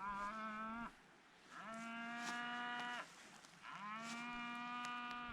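Cattle mooing: three long calls in quick succession, each rising briefly at the start and then held on a steady pitch.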